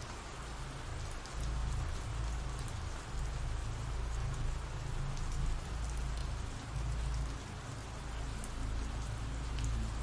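Steady rain falling, with scattered faint drop ticks and a low rumble underneath.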